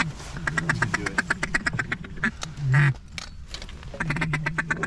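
Mallard duck call blown close by, a fast chatter of short quacking notes at about ten a second, broken by one louder, longer note about three seconds in and a brief pause before the chatter resumes, calling to incoming mallards.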